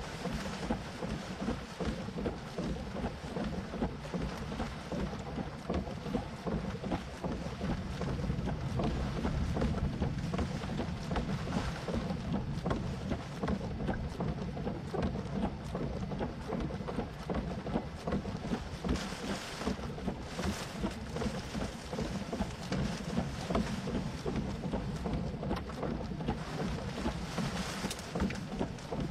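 Wind and rain rushing over the microphone in a storm, a steady buffeting noise that swells in stronger gusts about two-thirds of the way through and again near the end.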